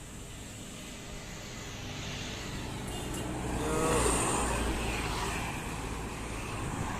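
A bus driving past: engine and road noise build to a peak about four seconds in, with the engine note bending in pitch as it passes, then fade.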